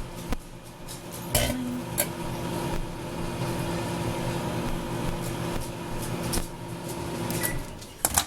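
Microwave oven running: a steady hum with a low drone, heating a foaming cleaner inside. A few sharp clicks come about a second and a half in and again near the end, and the hum stops shortly before the end.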